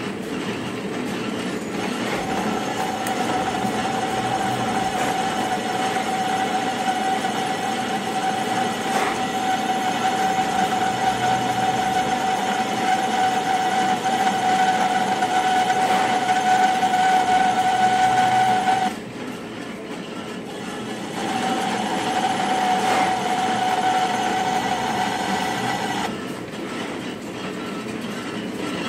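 Metal lathe running while a boring bar cuts the bore of a gear, with a steady high-pitched ring from the cut. The ring breaks off about two-thirds of the way through, returns for a few seconds, then stops near the end while the lathe runs on.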